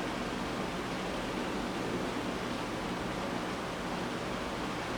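Steady, even background hiss with no speech, the constant noise floor of the room and recording.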